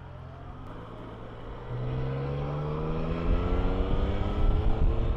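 Yamaha Tracer 900's three-cylinder engine running at a low, steady note, then from about two seconds in its pitch rises steadily and it grows louder as the motorcycle accelerates.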